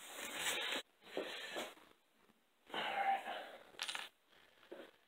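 Handling noise: short bursts of rustling and scraping, with a sharp click about four seconds in.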